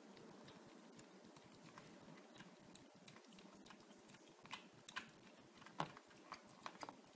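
Two kittens chewing and crunching dry cat kibble: faint, irregular crisp crunches, coming more often and louder in the second half.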